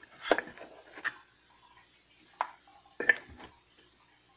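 Measuring cups clinking and knocking as they are taken out and handled: four sharp clinks about a second apart, one of them ringing briefly about halfway through.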